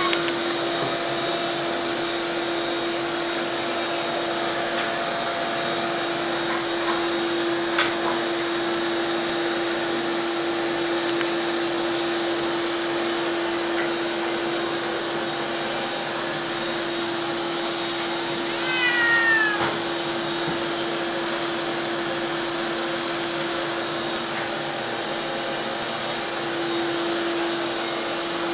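A steady mechanical hum with one constant low tone throughout, with a brief click about eight seconds in. About two-thirds of the way through, a cat gives a single short meow that falls in pitch.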